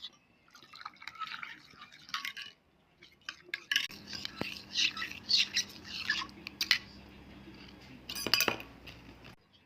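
Kitchen utensils and dishes clinking and scraping irregularly as ingredients are handled, with a few sharper clinks.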